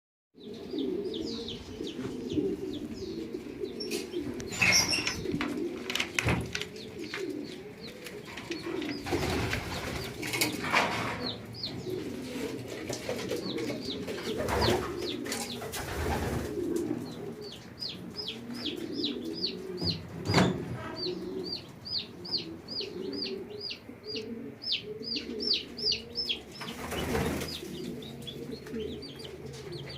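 Pigeon cooing continuously, with chicken chicks peeping in quick runs of high, falling chirps that come most steadily in the second half. A few short rustles or wing flaps break in now and then.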